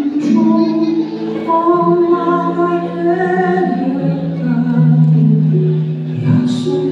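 Women singing a slow song into microphones, long held notes, amplified through a hall's loudspeakers with musical accompaniment.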